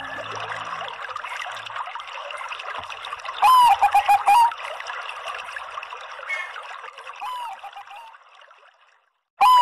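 Zebra dove (perkutut, Bangkok type) cooing over a steady trickle of water. A loud call comes about three and a half seconds in, a high opening note falling into a quick run of lower notes, and a fainter call follows about seven seconds in. Near the end the sound fades to a moment of silence, and another loud call begins right after it.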